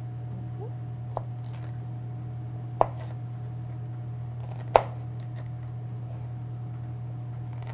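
Chef's knife slicing a jalapeño into strips on a cutting board: three sharp knocks of the blade on the board, a second or two apart, the last one loudest, with a few fainter ticks between, over a steady low hum.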